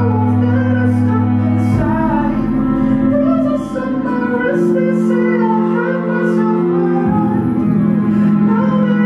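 Live band music from a concert performance: sustained low chords that change every couple of seconds, with the singer's voice wavering in a melody over them.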